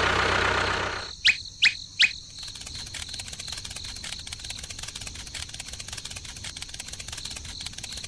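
A noisy rush fading out over the first second, then three quick rising bird-like chirps, followed by a steady fast ticking.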